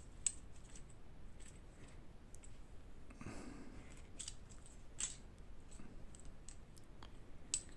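Faint, scattered small clicks and taps of airsoft rifle parts being handled and set down. There is a short scraping rustle about three seconds in.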